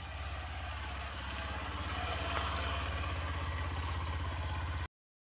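Motorcycle engine running at low speed, a steady low pulsing that grows gradually louder. It cuts off suddenly near the end.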